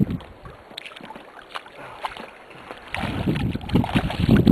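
Hooked smallmouth bass thrashing and splashing at the surface beside a canoe, loudest from about three seconds in as it is reached for by hand.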